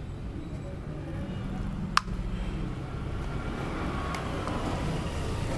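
Hand tools working the diaphragm assembly out of a motorcycle carburettor, with one sharp click about two seconds in, over a steady low background rumble.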